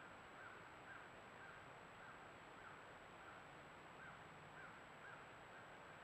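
Faint bird calls repeated evenly, about two a second, over the steady hiss of a trail camera's microphone, with a thin steady high tone behind.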